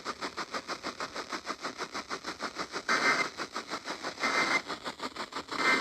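Broadcast radio static with a rapid pulsing buzz, about nine pulses a second. About three seconds in come three short bursts of two-tone EAS data, each about a third of a second and spaced roughly a second and a half apart: the end-of-message code that closes an emergency alert.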